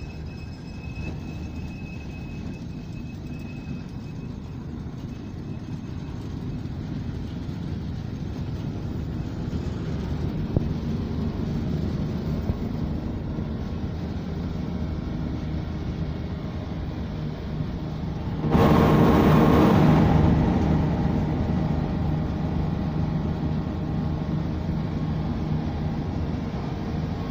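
Asphalt mixing plant running in production: a steady low machinery rumble from the drum burner and its blower fan. It swells into a much louder rushing roar for about two seconds past the middle, then settles back.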